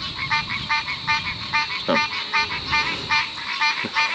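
An animal calling outdoors: short pitched calls repeating evenly, about three a second, over a steady high hiss.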